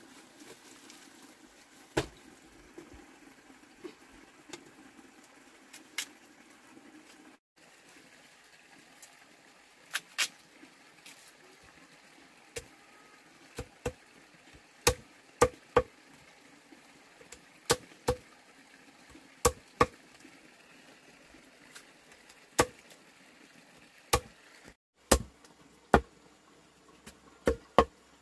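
Machete chopping into fresh bamboo shoots against a wooden log: irregular sharp chops, often in quick pairs or threes.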